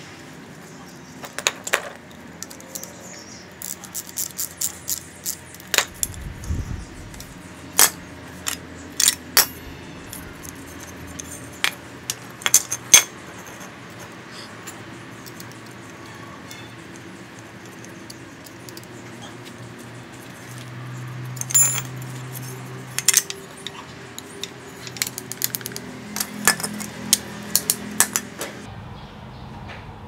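Irregular sharp metallic clicks and clinks as a steel spring ground clamp and a welding electrode holder are handled and their cable terminals fastened by hand.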